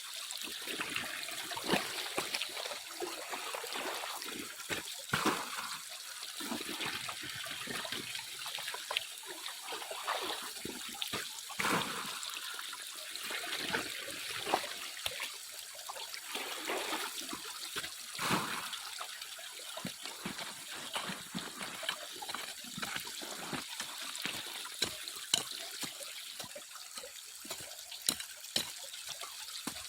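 Water trickling and splashing by hand as sediment is washed for gold, with frequent short, irregular splashes over a steady trickle.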